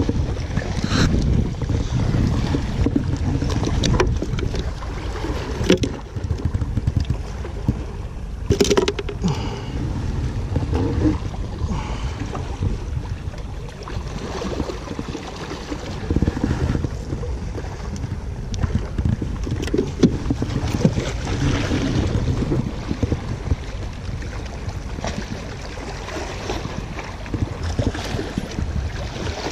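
Wind rumbling on the microphone over sea water washing against the breakwater rocks, with a few sharp clicks and knocks from handling.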